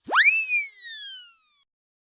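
Cartoon sound effect: a whistle-like tone that shoots quickly up in pitch, then glides slowly back down and fades out after about a second and a half.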